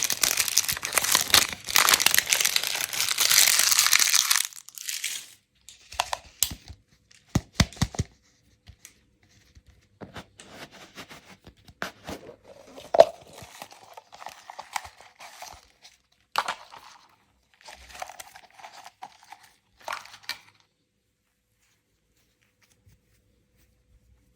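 Candy packaging being torn open and crinkled. Loud continuous crinkling for the first four seconds or so, then scattered short crinkles and small clicks, stopping about four seconds before the end.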